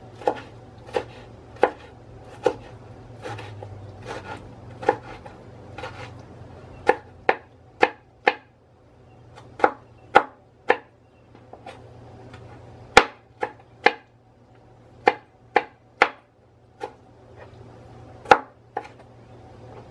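Large kitchen knife dicing a tomato on a wooden cutting board: about twenty sharp chops in an uneven rhythm, some in quick runs of two or three, with short pauses between.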